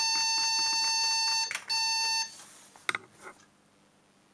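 Schneider Euro PC's speaker sounding a steady, high-pitched error beep, broken once by a short gap and cutting off about two seconds in. It is the CMOS error beep caused by the computer's worn-out backup battery (accumulator). A couple of faint clicks follow.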